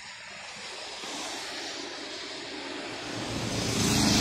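Highway traffic noise. A small cargo mini truck passes close in the last second, its engine and tyres growing louder to a peak near the end.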